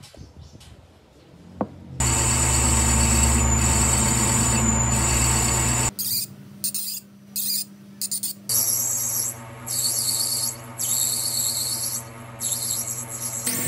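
Metal lathe machining a brass bar: the motor runs with a steady hum while the cutting tool works the metal, starting and stopping in several short segments. A single sharp click comes just before the machine starts.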